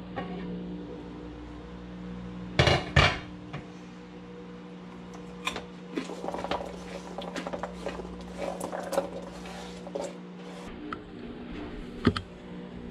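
A glass slow-cooker lid is set down with two loud clunks about three seconds in. Cubed carrots then clatter in a run of small taps as they are scraped off a cutting board into the stoneware crock, over a steady low hum that stops near the end.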